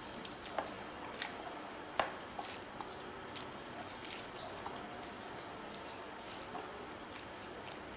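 Fingers mixing rice with a vegetable dish on a steel plate: soft wet squishes and scattered light clicks, the sharpest about two seconds in, over a steady low hiss.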